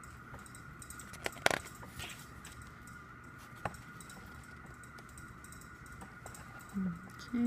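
Pages of a glossy photobook being handled and turned, with a sharp page snap about a second and a half in and a softer one a couple of seconds later, over a faint steady high background tone.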